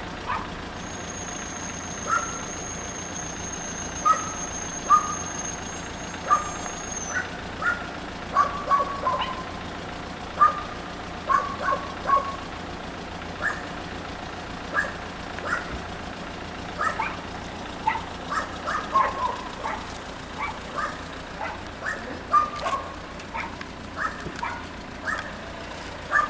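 A dog barking repeatedly at irregular intervals over a steady low hum.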